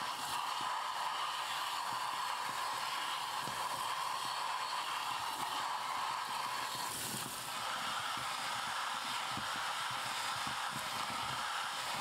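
Kitchen sink spray head running a steady hiss of water onto a plastic-mesh dishwasher fine filter and into a stainless steel sink; the pitch of the spray shifts slightly higher about seven seconds in.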